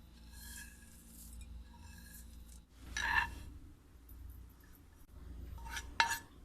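Scraping and rubbing of kitchen utensils, with a ringing clink about three seconds in and a sharp clink near six seconds.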